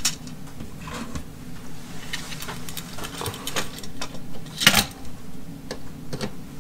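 Cordless drill and a plastic surge protector being handled against a wooden floor joist: scattered small clicks and knocks, with one sharper knock about two-thirds of the way in, over a steady low hum.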